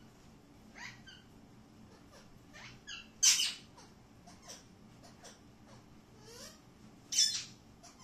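Alexandrine parakeets calling: short soft chirps and whistles, with two loud harsh screeches, one about three seconds in and another about seven seconds in.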